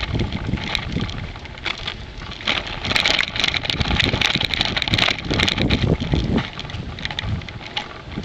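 Wind buffeting the microphone of a bicycle-mounted camera while riding, over the rolling tyre noise and rattle of the bike. About three seconds in the hiss grows brighter and louder, with scattered clicks, for a few seconds before settling back.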